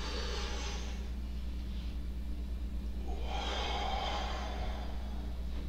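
A man breathing slowly and deeply during a paced breathing exercise: one long breath at the start and another about three seconds in, over a steady low hum.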